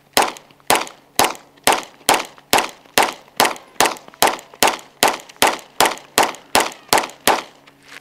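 Springfield Prodigy 9mm pistol firing Winchester Defender +P 147-grain rounds in an unbroken string of about eighteen shots, roughly two a second and evenly spaced, stopping near the end. This is a function test of the pistol with a modified Atlas Gunworks guide rod, to see whether it cycles the hot +P ammunition.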